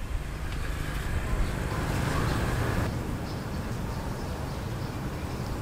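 Steady outdoor background noise with a low rumble and no distinct events; its character shifts abruptly about three seconds in.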